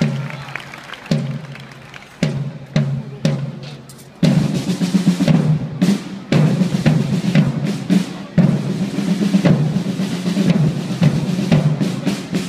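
Drums beating: a few single strokes spaced about a second apart, then continuous drumming with rolls from about four seconds in.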